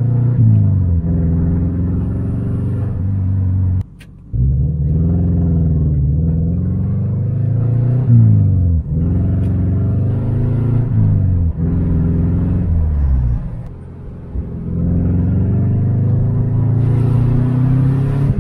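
2001 Subaru Impreza RS's 2.5-litre flat-four engine heard from inside the cabin, pulling up through the gears: its note climbs in pitch and drops back at each of several gear changes. About two-thirds through it eases off and runs quieter before pulling up again.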